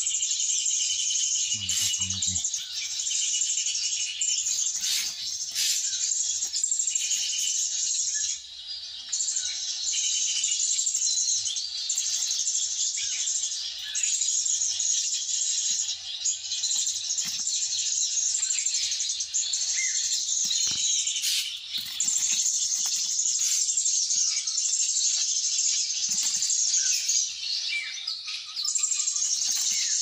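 Steady, high-pitched chorus of forest insects, broken by a few short pauses, with scattered bird chirps over it.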